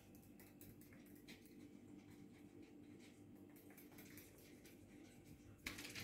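Near silence: room tone with faint scattered ticks, and a brief louder noise just before the end.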